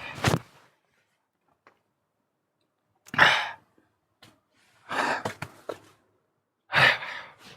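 A man's voice letting out three short, breathy sighs, about three, five and seven seconds in, the first the loudest, after a few seconds of near silence.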